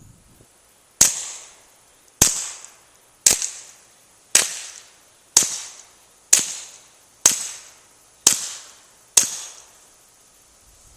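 Walther P22Q .22 LR pistol fired through a SilencerCo Sparrow suppressor, shot dry with subsonic ammunition: nine suppressed shots about a second apart, each trailing off in a short echo. Heard from downrange of the muzzle.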